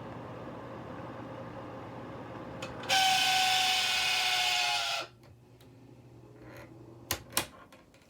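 A small electric motor whirs loudly for about two seconds, its pitch sagging slightly, then switches off suddenly and winds down; two sharp clicks follow near the end. A steady low hum is heard underneath before it starts.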